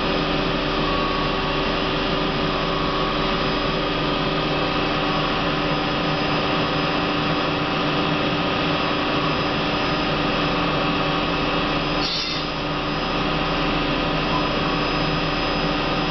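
Hardinge Quest 10/65SP CNC turning center running a program, its spindle turning with a steady hum and whine of several tones. The sound dips briefly about twelve seconds in.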